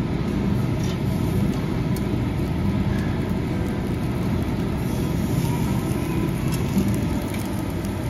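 Steady low roar of a tabletop charcoal grill's built-in exhaust drawing air through the vent ring, with a few faint crackles from marbled beef searing on the wire grate over the coals.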